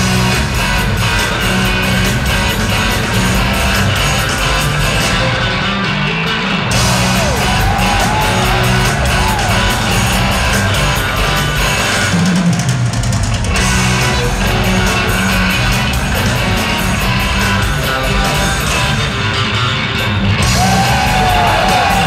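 Rock trio playing an instrumental live at full volume: electric bass, electric guitar and a large drum kit, heard from the audience through the hall's PA.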